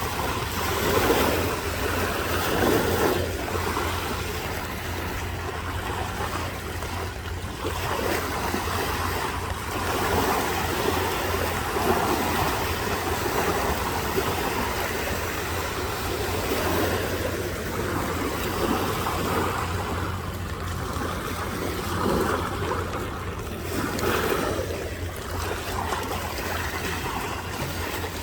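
A barge's wake waves washing against the river bank in uneven surges every second or two, over a steady low rumble.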